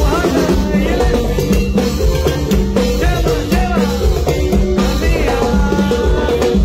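Live band playing upbeat dance music: a drum kit keeps a steady beat with cymbals under a melody line.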